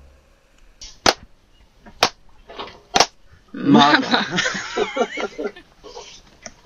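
Three sharp smacks about a second apart, followed by a few seconds of a person's voice with wavering pitch.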